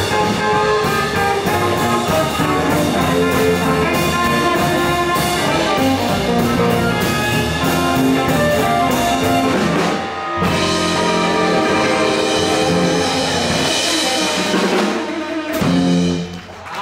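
Live band playing an instrumental passage: electric guitar, upright double bass and drum kit, with a harmonica played into the vocal microphone. The band stops briefly about ten seconds in, then comes back in.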